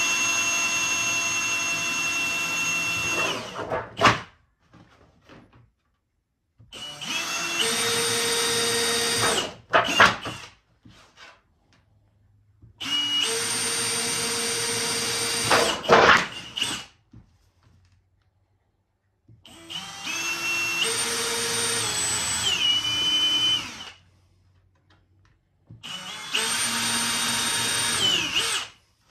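Cordless drill boring screw holes through thin galvanized steel sheet, in five runs of a few seconds each with short pauses between. The motor whine shifts in pitch within a run, and several runs end in a brief clatter as the bit breaks through the metal.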